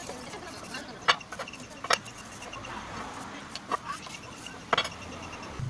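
Four sharp knocks or taps, spread unevenly over a few seconds, over a low steady background.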